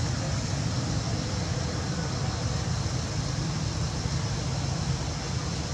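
Steady background noise: a low rumble with an even hiss above it.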